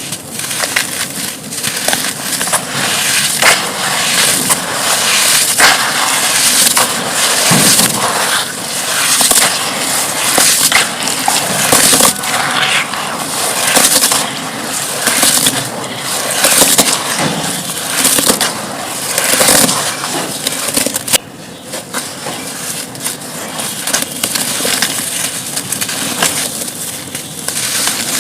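Dry, brittle chunks being crushed and crumbled, a dense run of crisp crackles and crunches that swell and ease, with a short lull about two-thirds of the way through.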